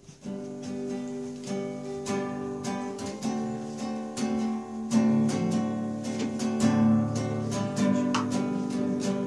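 Acoustic guitar strummed in steady chords, playing the introduction to a congregational hymn before the singing begins.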